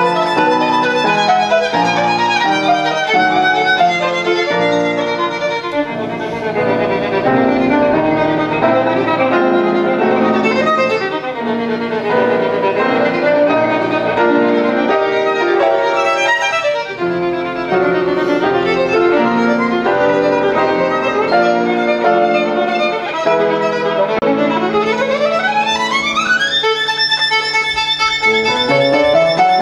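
Violin played with upright piano accompaniment in a classical piece, with quick rising runs near the end.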